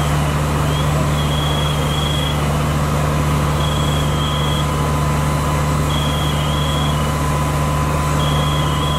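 Steady drone of an engine running, with pairs of short high beeps every two seconds or so.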